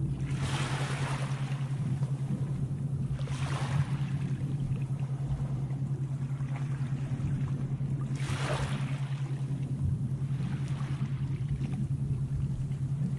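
Sea waves washing in, four swells in about thirteen seconds, over a steady low hum.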